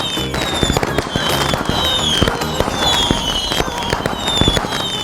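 Deepavali firecrackers going off in a dense run of sharp cracks and bangs, with short falling whistles repeating every half second or so.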